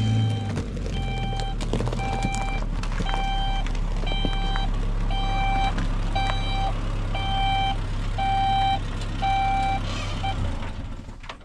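Pickup truck reversing with its reverse alarm beeping at a steady pace, a little more than one beep a second, over the low hum of its engine running. The beeping and engine hum stop shortly before the end.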